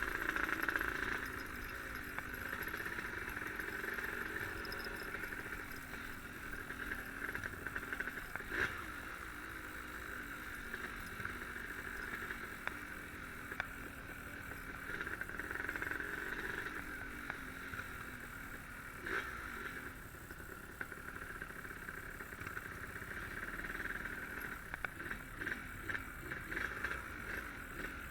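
Yamaha RD135 two-stroke motorcycle running steadily while being ridden, its engine note swelling and easing slightly with the throttle.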